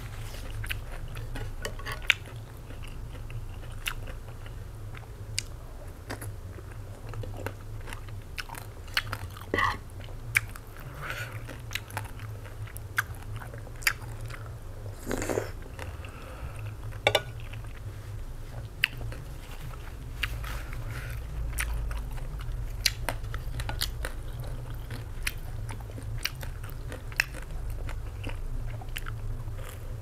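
Close-up chewing of egg noodles and pork in soup, with many small wet mouth clicks and smacks, over a steady low hum.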